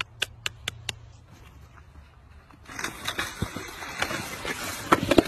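A quick run of about seven sharp clicks, then after a short lull a steady rushing noise with scattered knocks and rustles that grows louder near the end.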